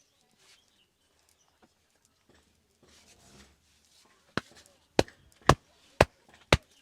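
Five sharp hand slaps about two a second, near the end: a barber's percussive head massage, hands striking the head.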